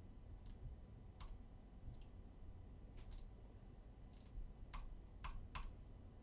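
Computer mouse clicking: about eight short, sharp clicks at irregular intervals, three of them in quick succession near the end.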